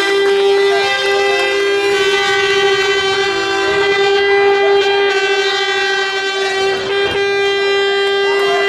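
A horn held in one long, steady blast of about ten seconds, with a second, shorter tone briefly sounding alongside it a couple of times.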